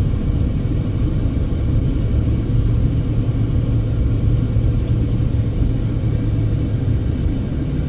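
Steady low rumble of a car's engine and tyres heard inside the cabin while climbing a mountain grade, with a low steady hum that grows stronger through the middle.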